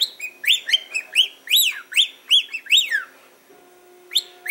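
Pet bird chirping: a quick run of whistled chirps, each sliding up and down in pitch, then a brief pause before the chirping starts again near the end.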